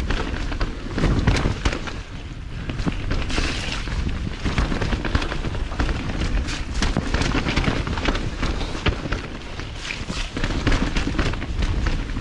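Mountain bike descending a wet dirt trail at speed: the tyres roll over dirt and roots while the bike rattles and knocks over the bumps, many small knocks in quick succession, over a heavy wind rumble on the microphone.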